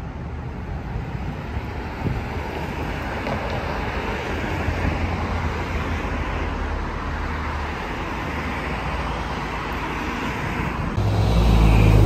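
Steady city street traffic noise from cars driving by. Near the end it turns suddenly louder, with a low rumble as a car passes close.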